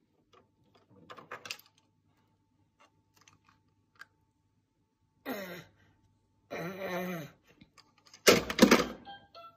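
A baby's short vocal sounds, two brief babbles about halfway through, then a loud clatter of plastic toys on the windowsill near the end, with faint clicks of toy handling earlier.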